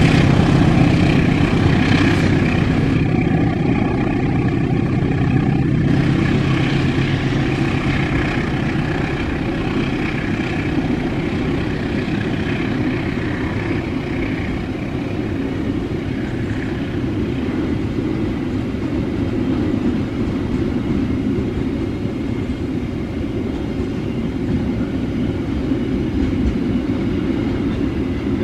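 A diesel locomotive's engine fades over the first several seconds as it pulls away. The container flatcars of a long freight train follow it past with a steady noise of wheels rolling on the rails.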